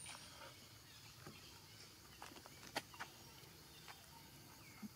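Near silence broken by a handful of faint, short clicks and smacks of baby macaques eating red dragon fruit, the sharpest a little past the middle.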